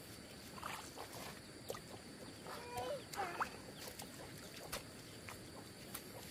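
A few short animal calls, the loudest a pair about three seconds in, among scattered light clicks and knocks, over a faint steady high tone.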